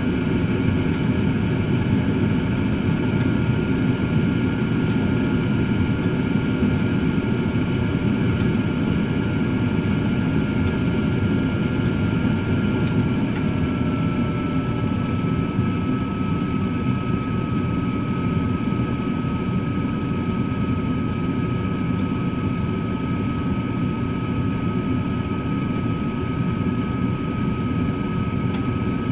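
Cosori 13-quart air fryer oven running while cooking steaks: a steady fan whoosh with a thin whine that drops slightly in pitch about halfway through, and a few faint ticks.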